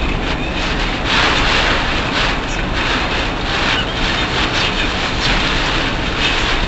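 Car driving at speed on a typhoon-soaked expressway, heard from a dashcam inside the cabin: a steady low road rumble, with a hiss of tyre spray and wind that swells and fades every second or so.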